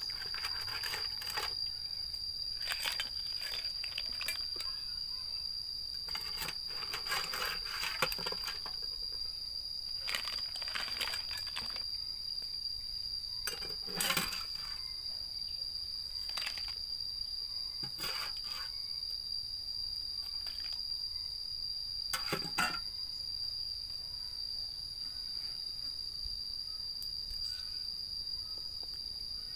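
Steady, unbroken high-pitched insect drone, with scattered light clicks and knocks over it.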